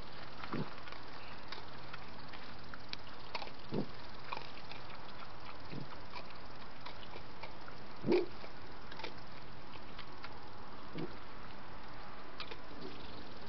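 European badger feeding from a plastic dish: scattered small wet clicks and mouth sounds over a trail camera's steady hiss, with one louder thud about eight seconds in.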